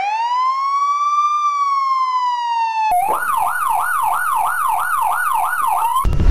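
Electronic police siren sounding a wail, one long rise and slow fall in pitch, then switching about three seconds in to a fast yelp of about three pitch sweeps a second. It cuts off just before the end into a low rumbling boom.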